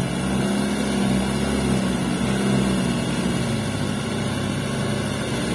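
Diesel engine of an overloaded light dump truck held under throttle as it crawls out of deep mud, with the excavator shoving it from behind also running. A steady low engine drone that swells slightly a second or two in.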